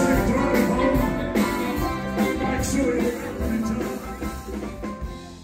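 A live band plays on stage, fading steadily away toward the end.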